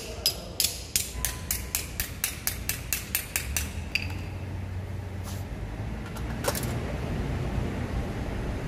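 Claw hammer striking a steel monitor-mounting bracket on the floor: a fast series of about fifteen ringing metal blows, about four a second, that stops about four seconds in. After that come a couple of light metal clicks over a low steady rumble.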